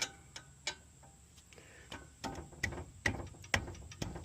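Irregular metallic clicks and ticks of hand tools working on a coilover's threaded adjusting collars, with a couple of clicks at first and a quicker run of them in the second half.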